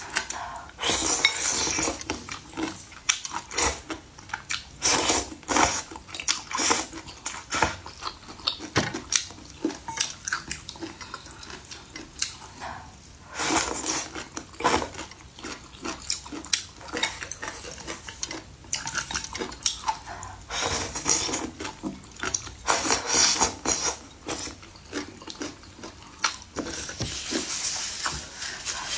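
Eating from a bowl: cutlery clinking and scraping against dishes, with irregular clicks and short noisy rushes lasting a second or two.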